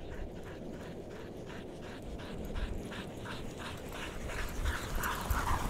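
A team of Siberian huskies panting in a quick, even rhythm as they run in harness, about three breaths a second, growing louder as they come closer.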